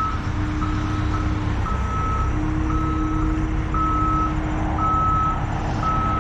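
Heavy machine's backup alarm beeping evenly about once a second, over the steady running of a diesel engine.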